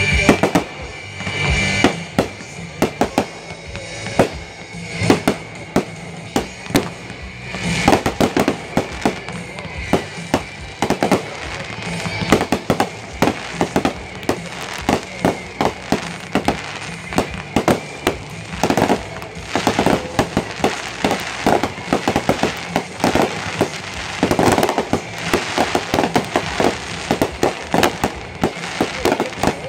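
Fireworks going off in quick succession: a continuous string of sharp bangs and crackling from shells launching and bursting, with a loud rushing blast as a ground effect fires at the start.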